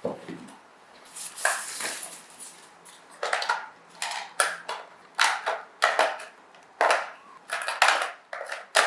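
Irregular crinkling and rustling of packaging being handled, a dozen or so short crackling bursts with no steady rhythm.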